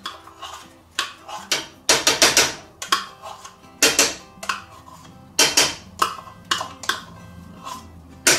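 Metal spoon knocking and scraping against the rim of a saucepan and a plastic measuring cup, a series of sharp clinks as sour cream is scraped off into the sauce.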